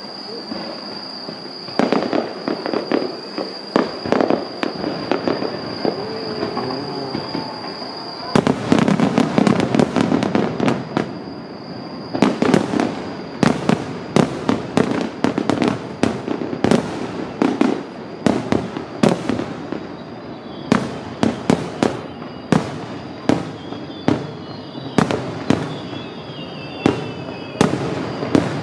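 Aerial firework shells bursting, a few scattered bangs at first, then from about eight seconds in a rapid, irregular barrage of bangs in a multi-shell volley.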